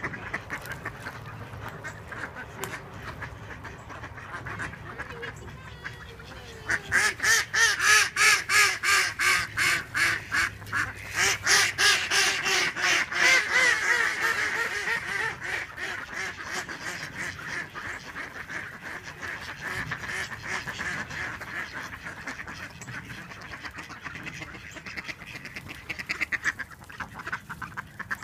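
A flock of domestic ducks quacking. About a quarter of the way in comes a loud run of rapid quacks, about four a second, lasting several seconds. It then settles into steadier, quieter quacking.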